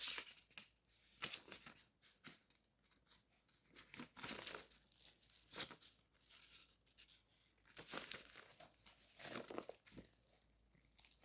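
Paper and plastic packaging from a phone box being handled: faint rustling and crinkling in short, irregular bursts with pauses between them.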